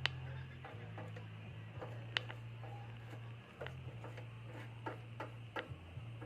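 A few sharp clicks and taps, irregularly spaced, the loudest at the start and about two seconds in. Under them runs a low steady hum that jumps between pitches now and then.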